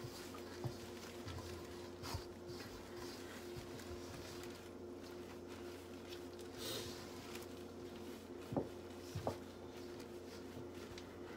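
A spatula stirring flour into bread dough in a stainless steel bowl: soft scraping with a few short knocks against the bowl, two of them a little louder near the end.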